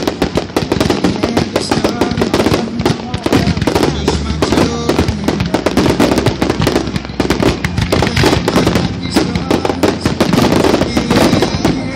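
Fireworks display: aerial shells bursting in a rapid, unbroken barrage of bangs, many a second.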